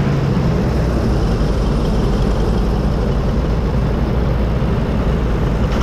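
Diesel tractor engine running steadily at close range, an even low hum with no change in speed.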